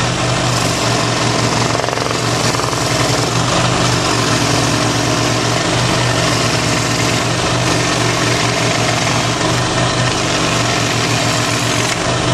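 Benchtop scroll saw running steadily, its blade moving up and down fast with a motor hum and blade chatter. The blade is mounted backwards, so it pushes through the foam board and melts it by friction heat rather than sawing with its teeth.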